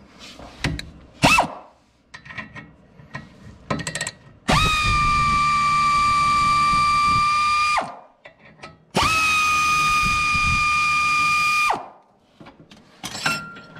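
Pneumatic air ratchet spinning out the mounting pin bolt of a Kelsey Hayes disc brake caliper: two runs of about three seconds each with a steady whine, a second's pause between them. Before the first run come a few clicks and knocks as the socket is fitted onto the bolt.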